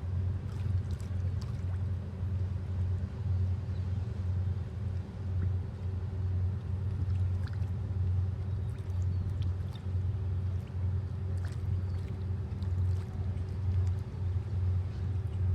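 Cement carrier ship's engine heard as a steady low rumble with a faint constant hum above it.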